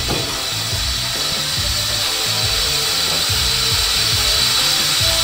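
Steam hissing steadily from a Fissler pressure cooker's valve as the pressure is let down at the end of cooking, the hiss growing slightly louder.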